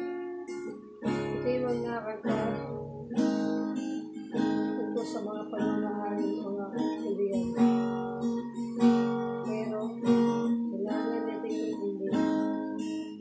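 Acoustic guitar strummed in chords in a steady rhythm, starting abruptly.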